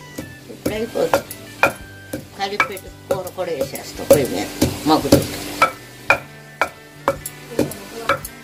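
Wooden pestle pounding dried coconut and spices in a stone mortar, steady strikes about twice a second.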